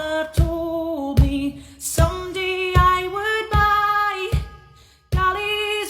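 Female voice singing a slow, held melody over a steady drum beat of about one hit every 0.8 s; the music dips briefly near the end, then comes back.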